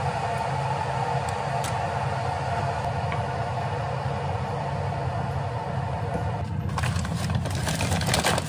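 A steady machine hum, a low drone with a higher tone above it, until about two-thirds of the way in. Then a paper bag crinkles and rustles as hands dig into it.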